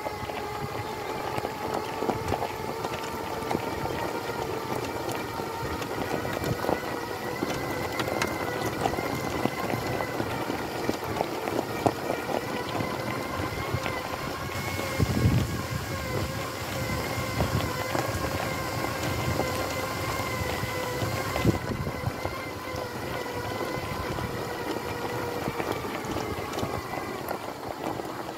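Magic Mobility Extreme X8 four-wheel-drive electric power wheelchair driving over a gravel track: a steady whine from its motors and gearboxes, with tyres crunching and clicking on loose stones. There is a louder low bump about halfway through.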